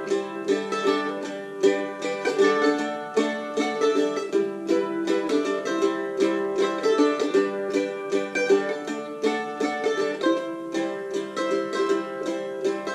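Mandolin played unaccompanied: an instrumental break of quickly picked notes and strummed chords.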